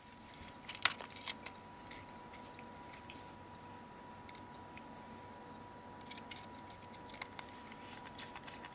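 A scattering of faint, short metal clicks and taps as a small Phillips screwdriver and tiny screws are handled against the metal frame of a Nokia X7 phone, over a faint steady high whine.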